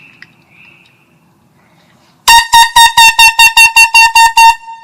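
A small handheld canned air horn sounds in a rapid string of short, very loud blasts, about a dozen in two seconds, starting about two seconds in. All the blasts are on one steady pitch, and a faint ringing tail follows the last blast.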